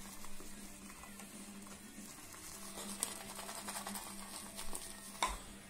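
Boar-bristle shaving brush (Omega 81151) swirled on a tub of shaving soap to load it: a soft, rapid scratchy brushing, with a couple of light clicks about three and five seconds in.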